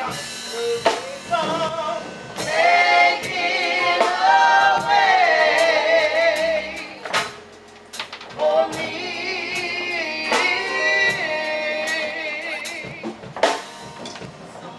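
A small group of women singing a gospel song into microphones, long held notes that waver in pitch, with a short pause about halfway through and another near the end.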